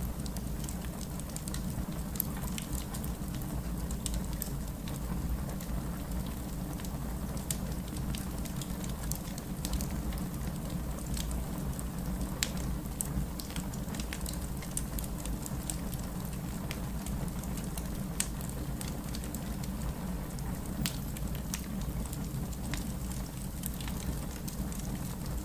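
Wood fire crackling in a fireplace: a steady low rumble of burning with frequent sharp pops and snaps scattered irregularly throughout.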